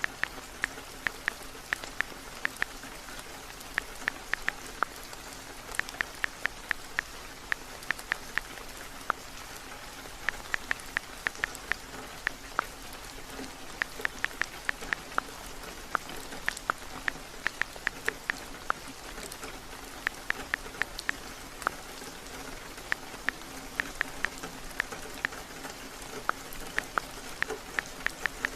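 Steady rain, with runs of quick light clicks on top, typical of tapping on a phone's touch-screen keyboard while typing. The clicks come several a second in bursts, with short pauses between them.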